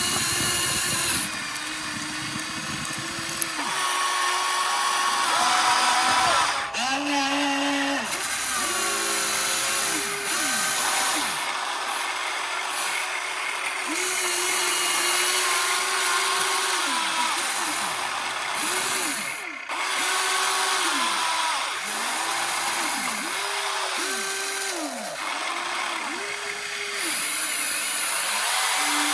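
Motor-driven hydraulic pump of an RC excavator whining, spinning up and winding down again and again, about every second or two, as the machine's movements are worked.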